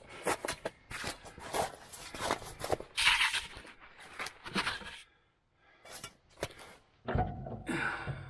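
Close handling noises while working on a snow plow hitch: irregular clicks and knocks, a short hissing scrape about three seconds in, and a low rumbling scuff near the end.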